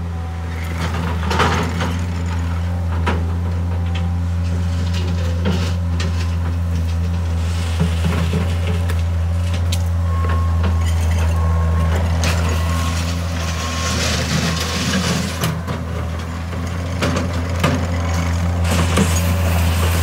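Mustang MTL16 compact track loader's diesel engine running steadily with a deep hum. Its tracks crunch over gravel and the bucket scrapes into a gravel pile, giving scattered clicks and scrapes.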